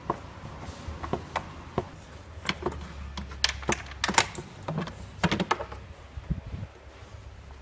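Kia Picanto's plastic air filter housing being worked loose and lifted out of the engine bay by hand: a run of irregular clicks, knocks and plastic clatter, the loudest about four seconds in.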